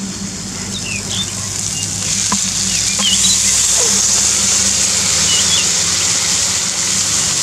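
Chopped bamboo shoots tipped by hand into a kadhai of hot oil, sizzling; the sizzle grows louder about two seconds in as more shoots go in. Birds chirp now and then over a steady low hum.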